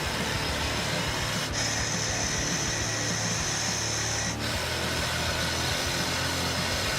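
Powered hedge trimmer running steadily with a low hum, its sound changing abruptly twice where clips are cut together.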